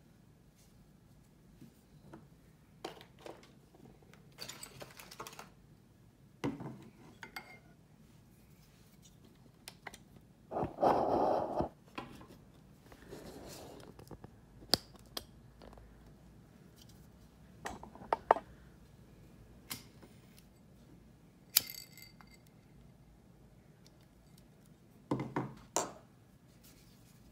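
Small hard objects handled and set down on a wooden tabletop, among them a glass dish holding a pillar candle: scattered clicks and knocks, with a louder noise lasting over a second about eleven seconds in.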